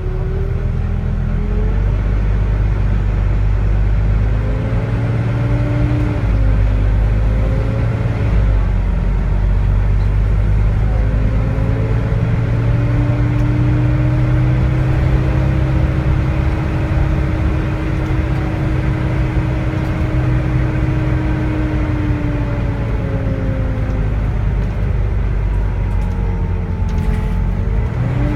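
Volvo D9A diesel engine of a Volvo B9TL double-decker bus working hard up a hill, a deep steady rumble with the whining, vacuum-cleaner-like "hoovering" note above it. The whine rises and falls, stepping in pitch as the ZF Ecomat automatic gearbox changes gear, and holds steady through a long stretch in the middle.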